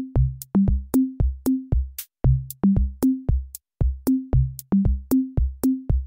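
Background music: an electronic drum-machine beat with kick drum and sharp clicks about three times a second under a short bass line that steps between a few notes.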